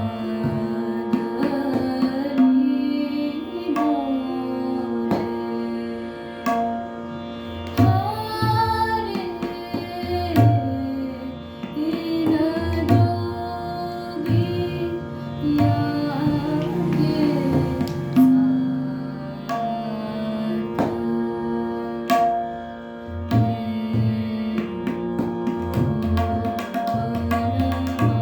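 Hindustani classical khayal singing in Raag Yaman: a female vocalist's slow, gliding melodic phrases over a steady drone, with tabla keeping ektaal at medium tempo.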